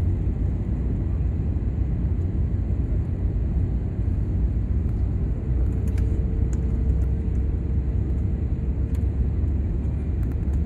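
Steady low rumble of a passenger aircraft, with a faint steady hum joining about halfway through and a few light clicks.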